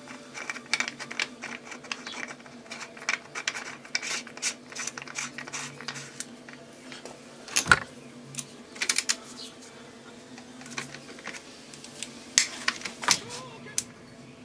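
Ratchet wrench clicking in quick runs as a socket turns a cap in a motorcycle engine's side cover, with a couple of louder metallic knocks.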